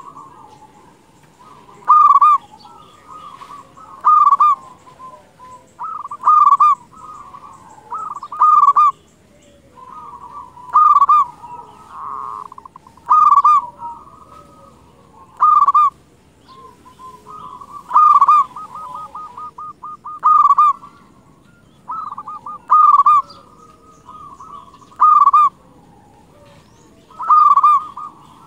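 Zebra dove (perkutut) cooing. A loud coo phrase repeats about every two seconds, with softer cooing between the phrases and a quick rattling trill partway through.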